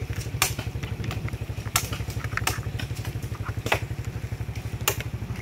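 An engine idling nearby with a steady low throb, and about five sharp snaps and cracks of branches being broken and pulled off a fallen tree.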